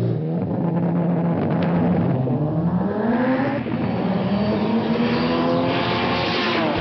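Drag-racing car's engine under hard acceleration on a drag strip, its pitch holding low for about two seconds, then climbing and holding high, with a rush of noise near the end as the car comes close.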